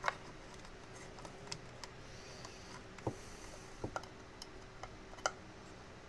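Scattered small clicks and taps, the sharpest right at the start, as a 9-volt battery is pressed into its metal bracket in a plastic case and a screwdriver is fitted to the bracket's screw.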